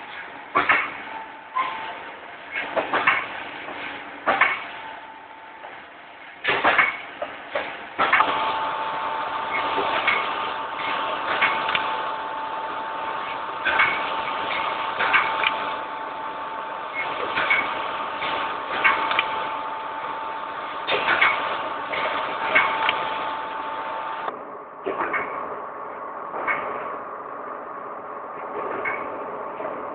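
Candy-making machine for hard candy, lollipops and gummies running, with sharp clacks repeating about once every second or so. A steady whine comes in about a quarter of the way through and cuts off suddenly near the end.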